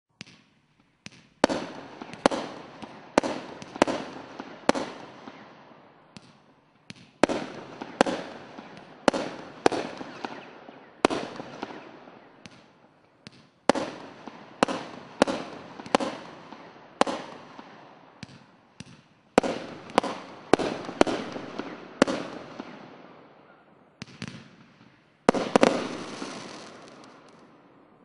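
Consumer firework cakes (multi-shot batteries) firing shot after shot: sharp bangs roughly every half second, each trailing off, in five runs of several shots with short pauses between.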